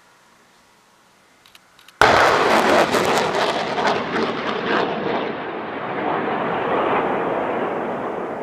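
Explosive detonation: a sudden loud blast about two seconds in, followed by a long noisy rush that slowly fades over the following seconds.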